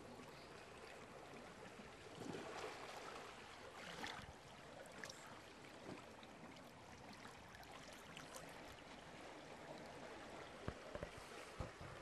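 Very faint water ambience: low lapping and trickling with a few soft ticks.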